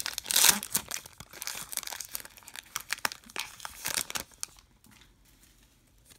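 Foil wrapper of a trading card pack crinkling and tearing as it is opened and the cards are pulled out. The crackling is loudest about half a second in and dies down after about four seconds.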